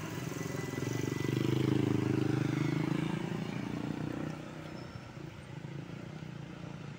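Road traffic: a motor vehicle's engine passes close by. It grows loudest about two seconds in, then drops in pitch and fades by about four seconds, leaving fainter engine noise from approaching traffic.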